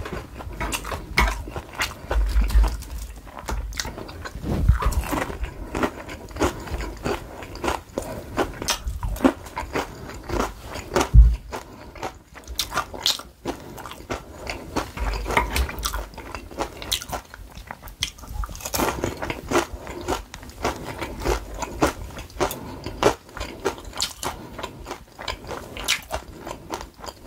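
Close-miked eating: crisp crunching and chewing of batter-fried red peppers (gochu-twigim), with many sharp irregular crunches. A single dull thump about eleven seconds in is the loudest sound.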